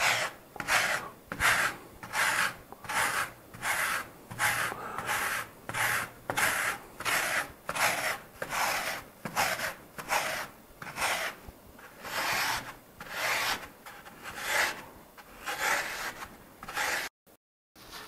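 Hand-held hard-foam scraper rasping out rigid foam board in steady repeated strokes, about one and a half a second, each a dry scratchy rasp. The sound cuts out briefly near the end.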